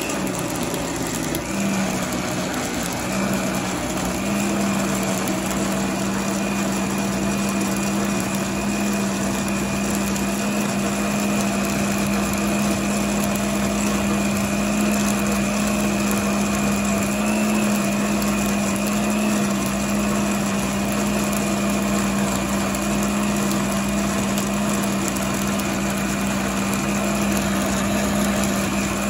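Countertop blender motor running continuously at speed, blending mixed fruit and juice into a smoothie: a steady motor whine over the churn of the liquid. Its pitch steps up slightly about four seconds in.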